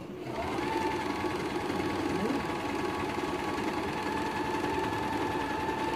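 Janome portable electric sewing machine running as it stitches. Its motor hum rises in pitch as it gets up to speed in the first half second, then holds a steady speed.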